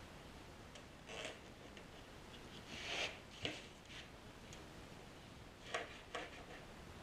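Faint pencil scraping on cardboard and light clicks of a plastic drafting triangle as a template is traced out. There are a few short scrapes, the loudest about three seconds in, and a few sharp ticks in the second half.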